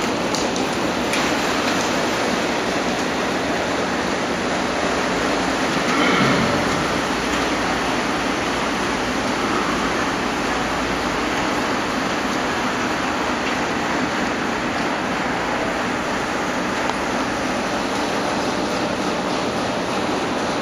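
Steady rushing noise with no clear rhythm, briefly louder about six seconds in.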